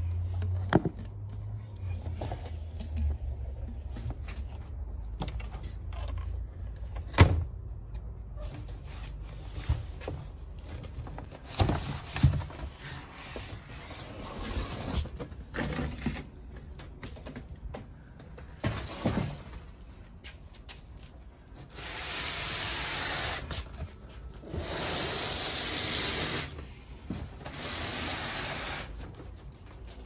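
Handling sounds around a portable washing machine and its parts: scattered knocks and clicks of plastic, then three stretches of rustling noise in the last third.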